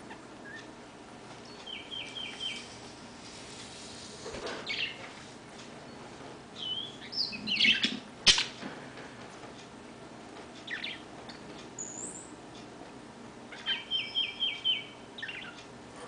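A female oriole pecking at its reflection in a mirrored gazing ball: two quick runs of four or five short chirps, about 2 s in and again near the end, with scattered single calls and rustling. A sharp tap a little past halfway is the loudest sound.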